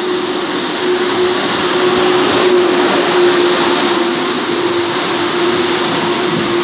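Frecciarossa high-speed electric train pulling in alongside the platform: a loud rushing noise of wheels and air, loudest a couple of seconds in, with a steady hum running through it.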